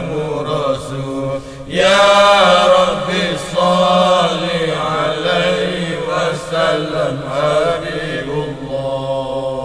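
Islamic devotional chanting of salawat on the Prophet: voices singing a melismatic melody over a steady low drone. It dips briefly about a second and a half in, then comes back louder.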